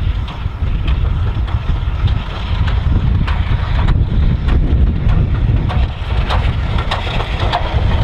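BR Standard Class 4 2-6-4 tank locomotive 80104 approaching with its train, a run of sharp knocks from the engine growing louder toward the end. Heavy wind rumble on the microphone underneath.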